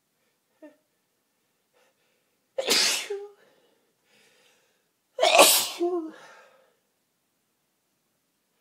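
A person sneezing twice, loudly, about two and a half seconds apart; the second sneeze is the louder and trails off longer.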